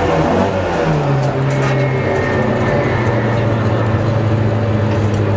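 Opel Kadett GT/E rally car's four-cylinder engine heard from inside the cabin, under way on a stage. Its note falls in steps over the first couple of seconds, then holds steady.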